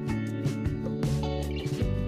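Background music led by guitar, with a steady strummed beat.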